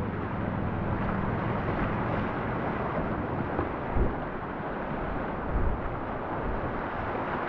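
Steady rushing of whitewater river rapids, heard from a kayak on the water, with a couple of brief low thumps on the microphone about four and five and a half seconds in.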